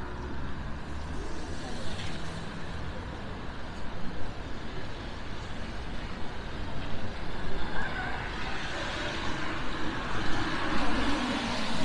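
Steady city street traffic on a wet road: an even hiss and rumble of passing cars, with a vehicle passing louder near the end.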